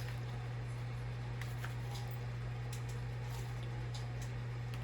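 A steady low electrical-type hum with a handful of faint, short clicks and rustles from paper being handled: guidebook pages being leafed through.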